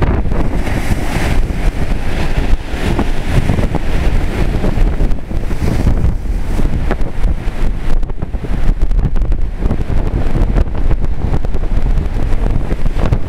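Hurricane wind buffeting the microphone in a steady low rumble, over storm surf washing onto the beach.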